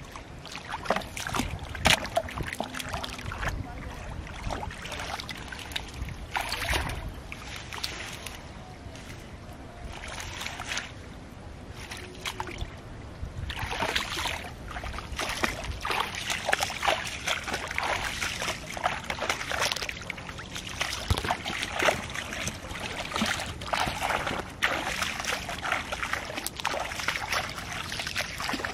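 Shallow muddy water splashing and sloshing as bare feet wade and hands work through it among water weeds, in irregular bursts that grow busier about halfway through.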